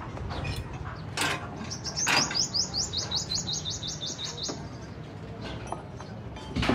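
A bird calling a rapid run of short high chirps, about six a second, lasting nearly three seconds. A couple of sharp knocks come just before and at the start of the run, with another near the end.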